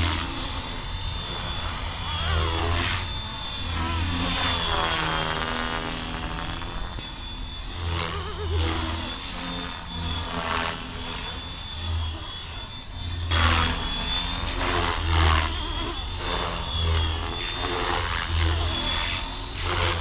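FlyWing FW450 V3 electric RC helicopter in hard flight. Its rotors make a steady high whine, and blade noise rises and falls in pitch as it sweeps past several times. It is being flown hard to test whether the quick-release main rotor blades hold.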